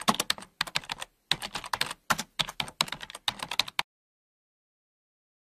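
Rapid typing on a keyboard: quick, irregular key clicks that stop abruptly about four seconds in.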